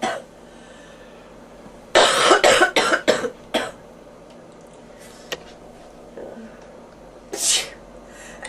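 A person with bronchitis coughing: a fit of about five coughs in quick succession a couple of seconds in, and one more short burst near the end.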